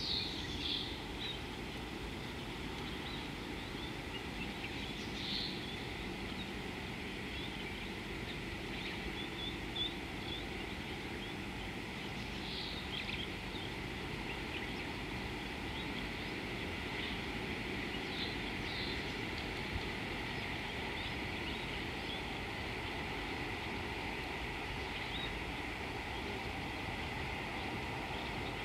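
Outdoor natural ambience: a steady low rumble and hiss, with short high bird chirps a few times.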